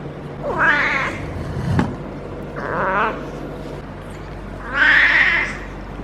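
Female cat in heat caterwauling: three drawn-out, wavering yowls about two seconds apart, the last the loudest. There is a short knock between the first two.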